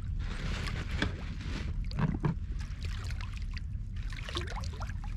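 Water lapping and splashing against the hull of a small inflatable boat, over a steady low rumble, with a louder splash or knock about two seconds in.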